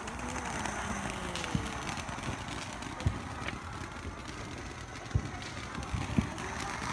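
Ground fountain firework spraying sparks with a steady hiss, with a few dull thumps about three, five and six seconds in.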